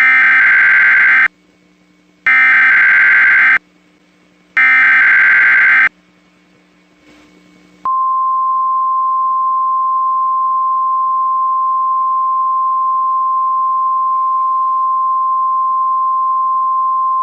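NOAA Weather Radio emergency alert: three bursts of SAME digital header data, each about a second long with short gaps between. About eight seconds in, the steady single-pitch warning alarm tone starts and holds, signalling a tornado warning, here a test.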